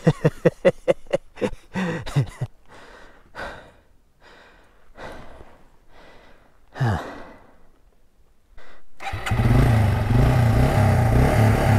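Yamaha TW200's single-cylinder engine chugging in a quick run of low thuds and dying out, then a few of the rider's breaths. About nine seconds in the engine is started again and runs steadily.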